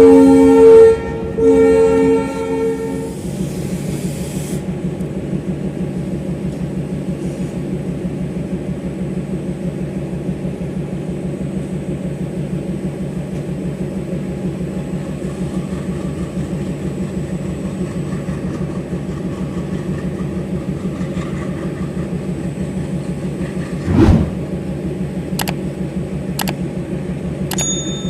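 Diesel locomotive's horn sounding, broken briefly about a second in and stopping about three seconds in, then the locomotive's diesel engine running steadily with a fast even throb. A single sharp knock stands out near the end.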